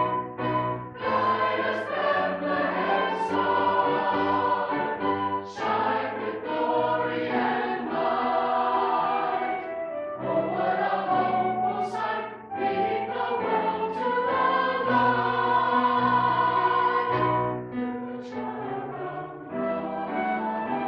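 Church choir singing a Christmas anthem in sustained chords, phrase after phrase, with brief breaks between phrases and crisp 's' consonants.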